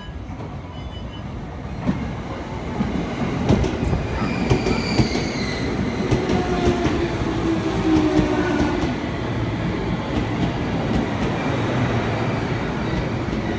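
JR East E231 series electric commuter train running past along a station platform: a rising rumble as it comes in, wheels clicking over rail joints, and a motor whine falling in pitch as the train slows.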